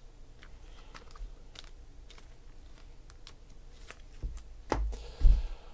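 Irregular light clicks and taps, with a dull thump about five seconds in.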